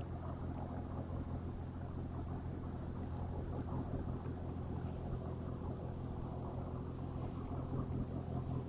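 Sea waves making a steady low rumble, with a constant low hum underneath and no distinct breaks or crashes.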